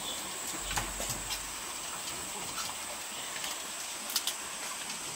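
Scattered light taps and clicks on a bamboo slat floor, with a sharp double click about four seconds in, over a steady high-pitched whine.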